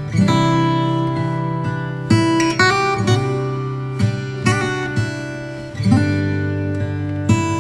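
Background music: acoustic guitar playing chords, each one struck and left to ring, changing about every second.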